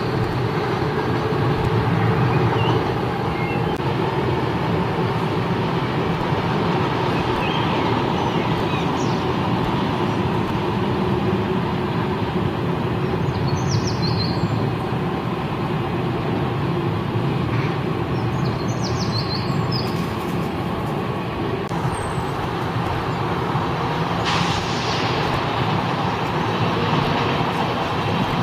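Trains rolling slowly past on the tracks: a steady low rumble, with a few short high squeals about halfway through and a brief hiss a few seconds before the end as another train comes in.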